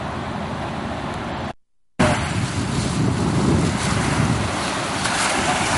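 Steady outdoor noise, broken by a short dropout about a second and a half in, then wind buffeting the microphone over small waves washing onto the beach.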